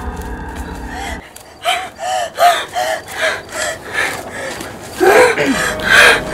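A woman's rapid, panicked gasping, short voiced gasps about two or three a second, then a longer moan that falls in pitch near the end.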